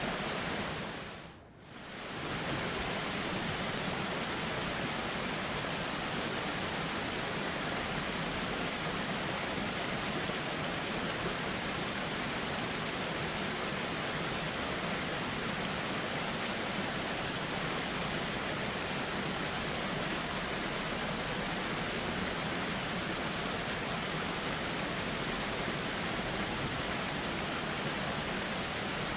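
Steady rush of a flowing river, an even water noise with no breaks. About a second and a half in, the sound briefly fades nearly out and comes straight back.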